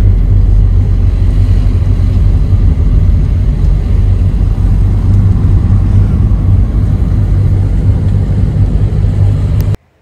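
Steady low rumble of a vehicle on the move, engine and road noise without any clear pitch; it cuts off suddenly near the end.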